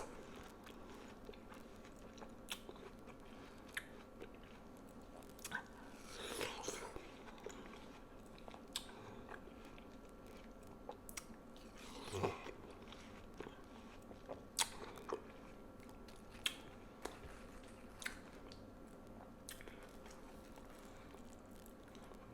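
Close-up eating sounds of juicy watermelon: wet bites and chewing with small crisp crunches and scattered mouth clicks at irregular intervals, the busiest stretches about six and twelve seconds in.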